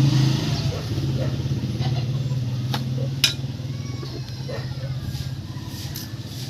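A small engine running steadily, slowly fading and dying away near the end, with two sharp metallic clicks about three seconds in.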